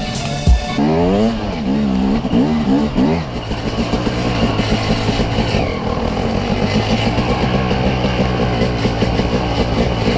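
KTM dirt bike engine heard from the rider's seat, revved up and down several times in the first few seconds, then running at a steady pace.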